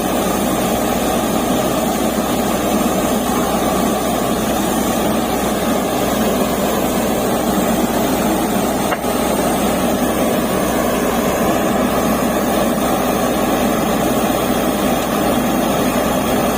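Borewell drilling rig running steadily and loudly while drilling, a constant mechanical noise with one brief click about halfway through.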